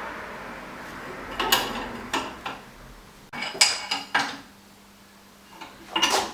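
Metal clinks and knocks of a wrench and tooling being handled while a milling cutter is clamped tight in its holder on a milling machine: about five sharp knocks, each ringing briefly.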